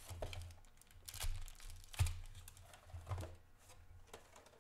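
Foil-wrapped trading card packs crinkling and clicking as they are pulled from a hobby box and laid down on a desk. The rustles and taps come irregularly, with a sharper knock about two seconds in.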